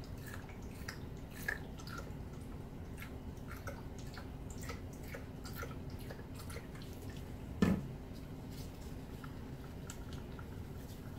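Small clicks and taps of plastic paint cups being handled, and thick acrylic paint being stirred in a cup with a stick. There is one louder knock about three-quarters of the way through, over a low steady hum.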